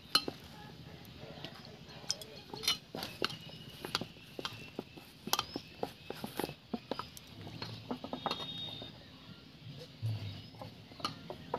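Flour dough being kneaded by hand in a stainless steel bowl: irregular clinks and knocks of the hand and bangle against the metal bowl, with soft squishing of the dough.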